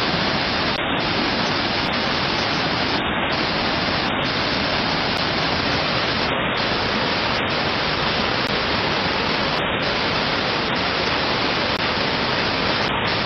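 Steady, hiss-like rushing of a muddy flood torrent pouring down a slope, an even wash of water noise with no separate events.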